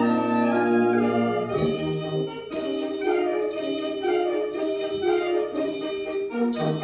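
Brass band playing an overture: a sustained full chord over a low bass note, then short accented chords about once a second over a moving melody.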